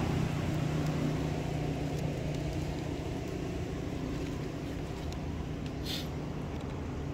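A motor vehicle engine running as a low steady hum that slowly fades away, like a vehicle moving off. A short hiss about six seconds in.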